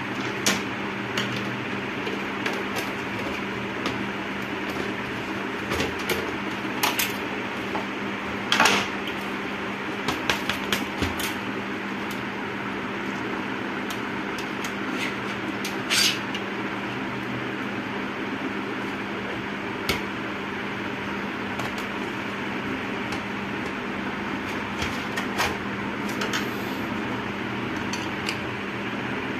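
Plastic and metal parts of an LCD monitor clicking and knocking as it is taken apart by hand, with the loudest cluster of knocks about eight seconds in. A steady hum runs underneath.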